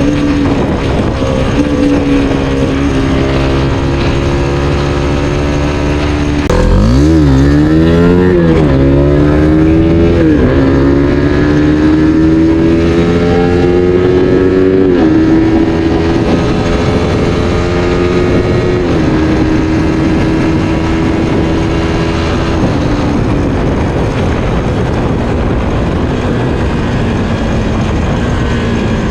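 Suzuki Satria F150 FI's single-cylinder four-stroke engine running under way. About a third of the way in it revs hard through three quick quickshifter upshifts, each a rising note cut short. Then it holds a steadier note that eases down in a few steps.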